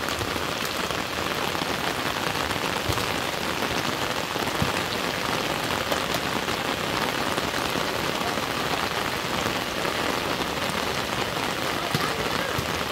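Steady rain falling, an even hiss with a few sharper drop impacts scattered through it.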